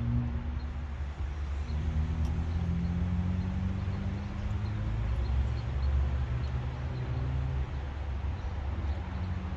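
An engine running steadily with a low hum, its pitch shifting slightly a few times.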